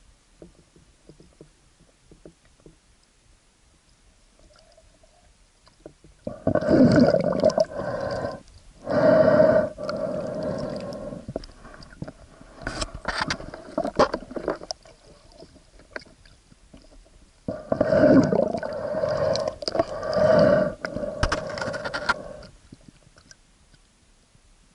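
Water gurgling and sloshing against an action camera's waterproof housing, in several loud bursts of one to two seconds separated by quiet stretches.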